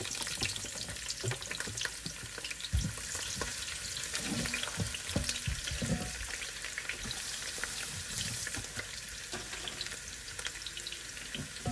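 Chopped onions frying in hot oil in a pot: a steady sizzle full of fine crackles, with a spoon stirring and now and then knocking against the pot.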